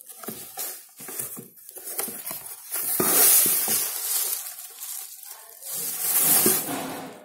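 Rustling and scraping handling noise, loudest in two stretches: about three seconds in and again around six seconds.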